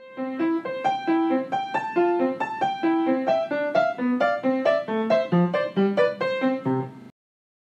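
Short music jingle of quick single keyboard notes, several a second, that stops abruptly about seven seconds in.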